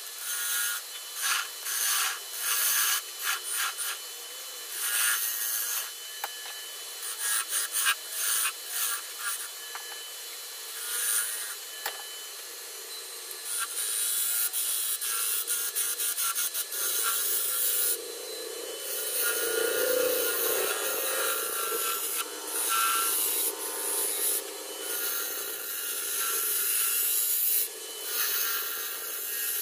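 Turning gouge cutting into a spinning figured walnut bowl blank on a wood lathe: a rough, hissing scrape as shavings peel off. It comes in many short, quick passes at first, then settles into longer, steadier cuts about halfway through.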